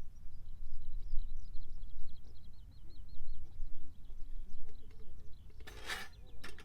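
A small bird sings a quick, repeated wavering song over a steady low rumble. A brief clatter of sharp clicks comes near the end.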